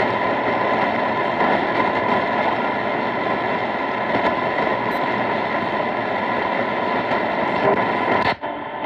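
Shortwave radio receiver playing steady band static through its speaker, with faint steady whistles in the hiss, while tuned to an empty or very weak frequency. The sound cuts out for a moment near the end.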